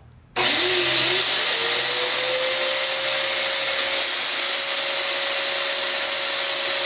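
Hoover vacuum cleaner's brush drive motor switched on for a bench test: it starts abruptly a fraction of a second in, whines up to speed over about a second and a half, then runs steadily with a high whine over a broad whirring hiss, showing that it works.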